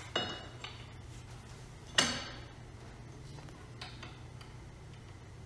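Metal quick-release workbench caster plate clinking as it is handled and set against the bench: two sharp metallic clinks with a short ring, about two seconds apart, and a few fainter taps.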